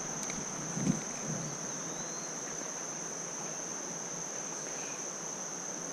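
A steady, high-pitched insect chorus trilling without a break, over the even rush of running creek water, with a faint bird chirp about two seconds in.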